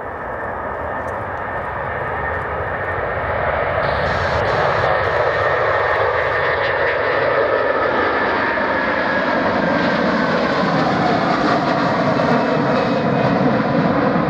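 Airbus A330-200 jet engines at takeoff power during the departure run, swelling louder over several seconds and then holding steady, with tones that slide downward as the airliner passes.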